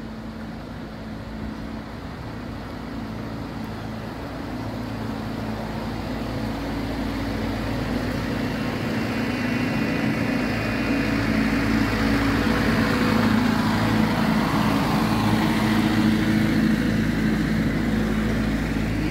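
Engine of a passing Parks Canada work barge running steadily, growing louder as it comes close.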